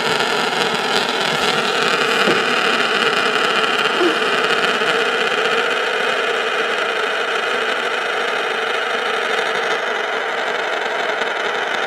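A homemade marble spinner, marbles glued together, spinning on a hard surface: a steady whirring rattle that eases slightly in loudness as it slows.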